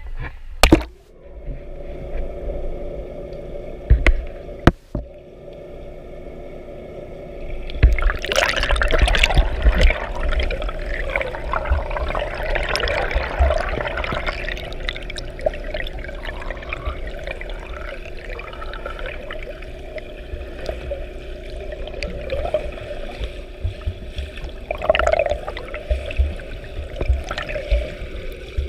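Swimming-pool water heard through an underwater action camera: a steady hum with a few sharp knocks early on, then from about eight seconds in the churning and bubbling of a swimmer's strokes and kicks passing close by.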